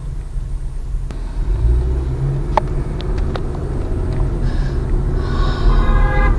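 Car driving, heard from inside the cabin: a steady low rumble of engine and road noise that grows louder toward the end, with a few faint clicks around the middle.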